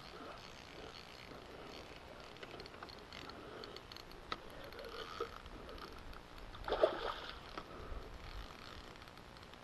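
A fish splashing at the water's surface close to the bank, with one loud splash about seven seconds in, over faint lapping water.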